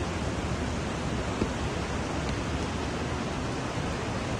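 Floodwater rushing through a street in a fast, muddy torrent: a steady rushing noise, with one brief tick about a second and a half in.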